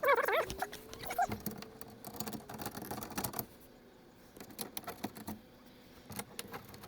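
Plastic clicks, knocks and rattles as an engine undertray is worked back into place under the car, with a short wavering squeak at the start.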